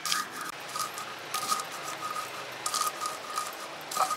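Stone pestle (ulekan) crushing fried peanuts against a flat stone grinding slab (cobek), a gritty crunch and scrape with each stroke, about four strokes. The peanuts are being ground together with chilli and garlic into lotek peanut sauce.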